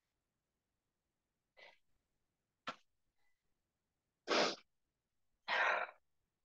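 A woman breathing out hard twice, about four and five and a half seconds in, out of breath after a flat-out sprint drill; a faint breath and a short sharp intake come before them.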